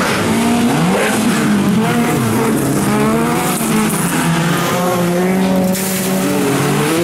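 Several bilcross race cars' engines running together at different pitches, revving up and down through a bend, with tyres skidding.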